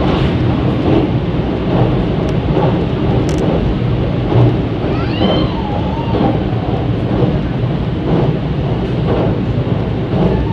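Electric train running across a steel truss bridge, heard from inside the carriage: a loud, steady rumble of wheels on rails with faint clicks. A brief whistling glide comes about halfway through.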